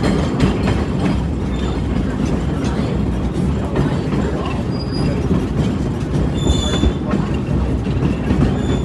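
Train carriage rolling along the track with a steady low rumble, and brief high wheel squeals about five and six and a half seconds in.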